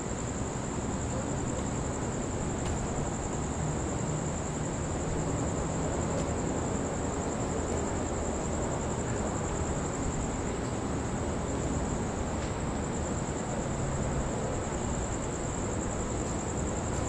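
Crickets trilling steadily in one continuous high-pitched chorus, over a steady low rushing background noise.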